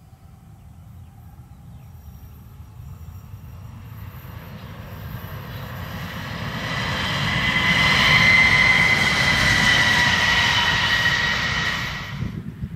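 CRRC Bison electric locomotive running at speed, growing louder as it approaches: a low rumble with a steady high-pitched whine over it. The sound cuts off suddenly near the end.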